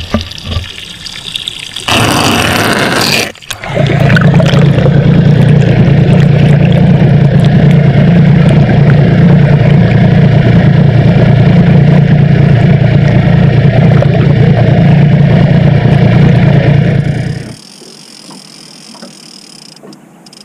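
Outboard motor and spinning propeller heard from underwater: a loud, steady drone, preceded by a couple of seconds of water splashing over the submerging lower unit. The drone stops abruptly near the end, leaving a much quieter background.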